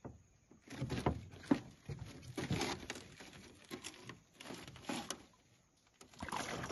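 Irregular knocks and rustles from handling in a small aluminium boat as a peacock bass is lowered over the side, with a short burst of noise near the end as the fish goes into the water.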